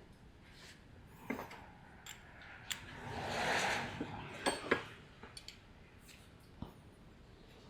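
Small metal and plastic parts of an air compressor regulator being handled and fitted together: scattered light clicks and taps, with a brief scraping rustle about three seconds in.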